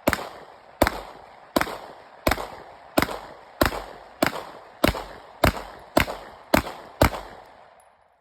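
Gunfire: about twelve single shots fired at a steady, quick pace, roughly one and a half shots a second, each trailing off in a short echo. The firing stops shortly before the end.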